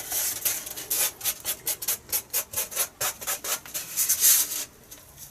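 Quick, repeated rubbing strokes against a foam wing, about four a second, as a carbon-fibre strip is worked into a glued slot; they stop near the end.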